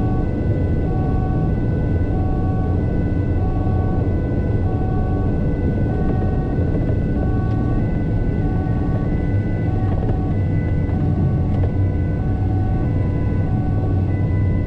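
Two-tone emergency siren alternating high and low about once a second, heard from inside the cabin of the incident response van over steady engine and road rumble.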